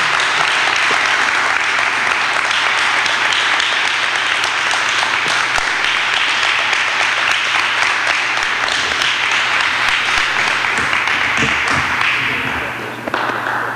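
Church congregation applauding steadily, dying down near the end.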